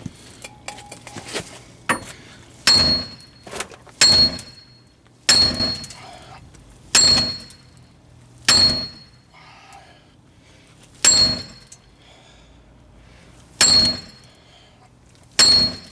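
A soft mallet strikes a hub removal tool about eight times, hard blows one to two and a half seconds apart, each with a short metallic ring, driving a stuck front wheel hub out of a 2003 Pontiac Grand Am GT's steering knuckle.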